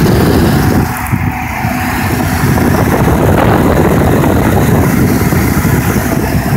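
Electric radiator cooling fans of a 2000 Chevy Impala running over the idle of its 3.8L V6, a loud steady rush of air that grows a little louder about two seconds in. The fans are switching on normally again now that a corroded ground connection has been cleaned.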